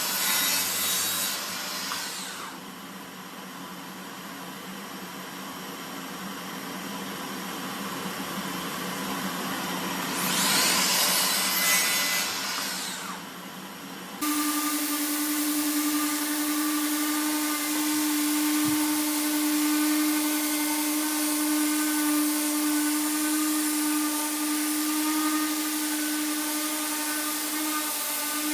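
Wood being sawn in stretches of noisy rasping strokes. About halfway through, the sound switches abruptly to a power tool's motor running steadily with an even hum.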